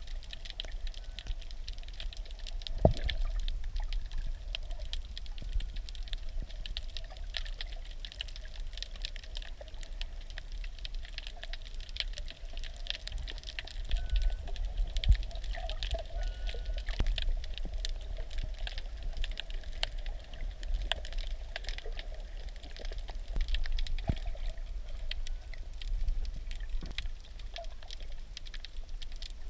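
Sea water around a snorkeller's camera: a steady wash with dense crackling clicks, and a couple of louder knocks, at about 3 seconds and about 15 seconds in.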